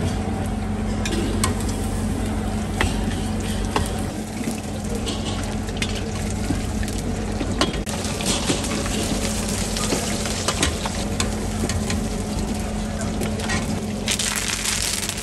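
Chicken pakoda pieces deep-frying in hot oil, a steady sizzle with scattered pops and clicks as they are stirred and scooped. The sizzle swells louder about fourteen seconds in.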